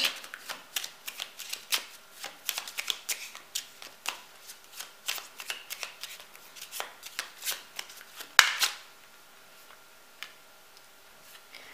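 A deck of divination cards shuffled by hand, an overhand shuffle heard as a quick run of soft flicks and taps. About eight seconds in, one louder slap as a card jumps out of the deck and lands on the table, after which the shuffling stops.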